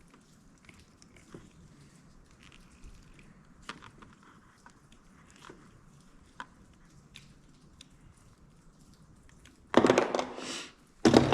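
Hands and hand tools working the cut end of a heavy extension cord: faint clicks and rustles, then two loud, noisy strokes about a second each near the end, as the cord jacket and wire insulation are cut and stripped to expose the two hots and the ground.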